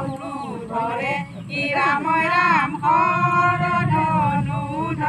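Several women singing together, in long held notes.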